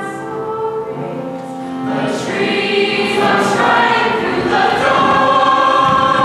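A group of voices singing together in chorus, with long held notes, swelling louder about two seconds in.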